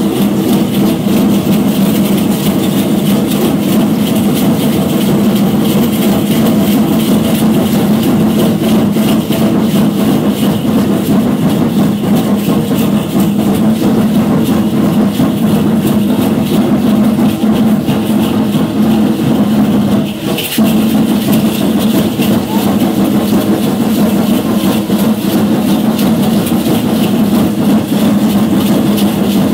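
Steady, dense shaking of the dancers' seed-pod ankle rattles (ayoyotes) over a continuous low drone, dipping briefly about twenty seconds in.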